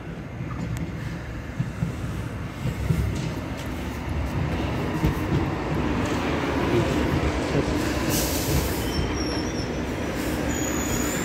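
Two-car Hong Kong Light Rail Phase II electric train pulling into the platform. Its wheels rumble on the track with scattered clicks, growing louder over the first several seconds, and a thin, high wheel squeal comes in near the end.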